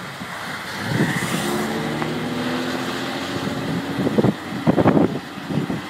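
A motor vehicle's engine running with a steady hum, with a few short, louder sounds near the end.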